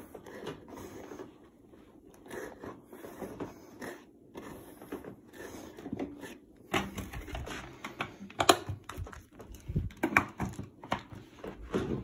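Handling noises from fitting a paper dust bag into a Prolux Tritan canister vacuum: irregular plastic clicks, paper rustling and light knocks, getting busier and louder about halfway through.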